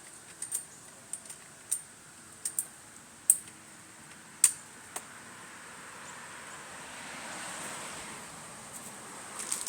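Pool ladder bars and fittings being fitted together by hand: a string of sharp clicks and knocks, about nine in the first five seconds, then a soft rushing noise that swells and fades.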